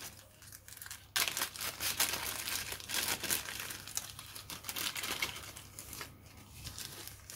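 Clear resealable plastic bag of resin parts being handled and pulled open, crinkling steadily from about a second in and easing off near the end.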